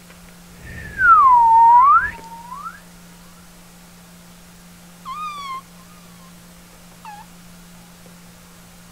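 Domestic cat meowing: one long, loud meow that falls and then rises in pitch, then a short mew about five seconds in and a brief chirp-like mew near the end.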